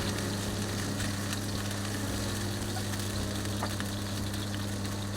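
Chicken pieces sizzling as they fry in oil in a pan, with scattered small crackles, over a steady low hum.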